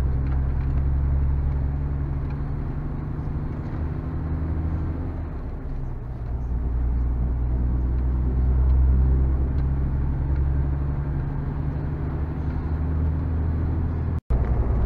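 Lorry's diesel engine droning steadily from inside the cab while driving uphill, with road noise. It swells a little in the middle and cuts out for an instant near the end.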